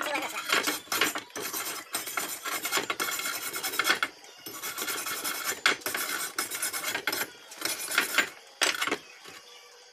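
Slag being scraped and chipped off fresh flux-core welds on a steel bracket: a run of rasping metal-on-metal scrapes broken by sharp knocks, stopping about nine seconds in.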